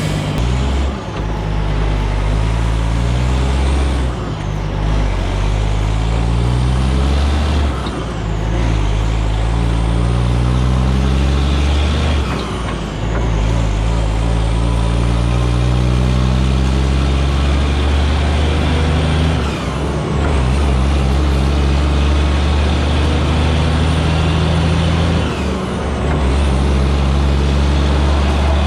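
2001 Western Star tractor's diesel engine pulling a lowboy loaded with a 20-ton excavator, working up through the gears. The engine note rises steadily, then briefly dips and drops in pitch at each shift, about six times.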